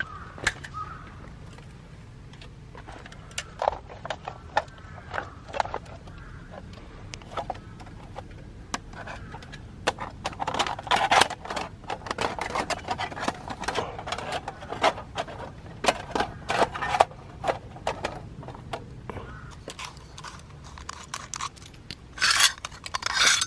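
Irregular clicks, clinks and scrapes of small camp gear and utensils being handled, busier in the second half, with a louder rustle near the end.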